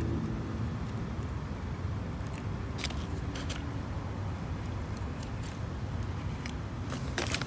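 A few small clicks and scrapes of sand being worked around a potted cactus by hand, over a steady low rumble.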